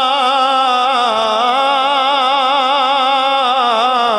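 A man's unaccompanied voice singing Punjabi Sufi kalam, holding one long note with heavy vibrato at the end of a line; the pitch dips slightly about a second in and falls away at the very end.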